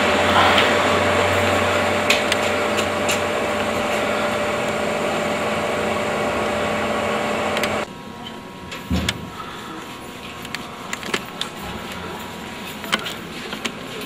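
A loud, steady mechanical drone with a held mid-pitched tone. About eight seconds in it cuts off abruptly to a much quieter background with scattered light clicks.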